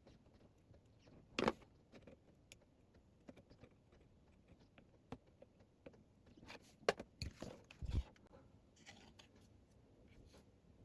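Scattered small clicks, taps and knocks from tools and small parts being handled at a workbench, with a louder knock about a second and a half in and a short cluster of knocks around seven to eight seconds in.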